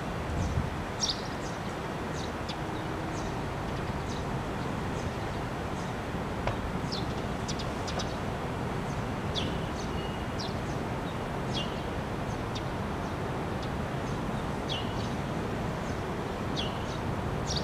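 Steady distant city traffic hum with small birds chirping over it, short high notes that each slide quickly downward, scattered irregularly throughout.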